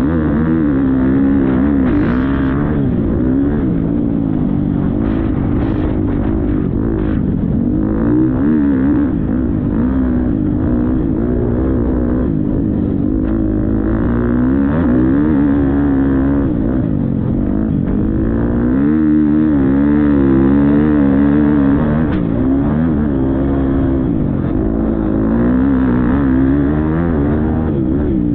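Motocross bike engine under race load, its pitch rising and falling again and again as the throttle is opened and shut, with a few short knocks in the first several seconds.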